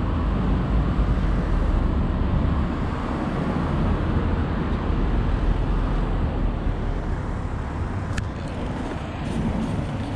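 Steady outdoor street noise: a continuous low rumble of road traffic, with a few faint clicks about eight seconds in.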